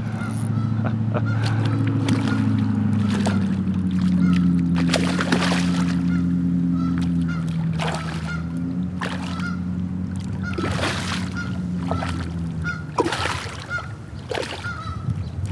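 A hooked smallmouth bass splashing and thrashing at the surface beside a kayak, a short splash every couple of seconds, over a steady low drone that fades near the end.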